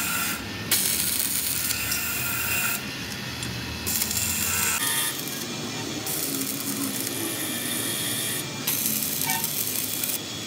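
Stick (arc) welding on a steel rear axle flange: the electrode's arc crackles steadily, breaking off and restarting several times as the welder stops and strikes the arc again.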